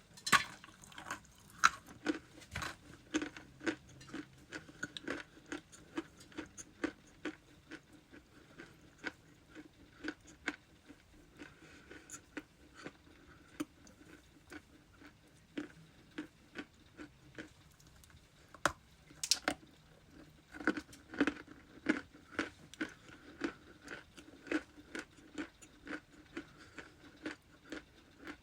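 Close-miked chewing and crunching of ice: irregular sharp crunches several times a second, with a denser, louder spell a little past the middle.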